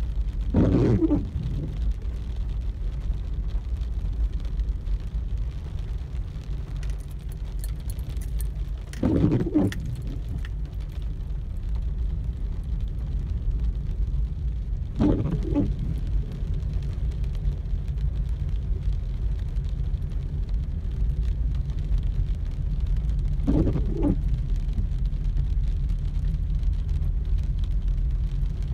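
Steady low rumble of a car driving through heavy rain, heard from inside the cabin. The windshield wiper sweeps across the wet glass four times, every six to nine seconds, and each sweep is briefly the loudest sound.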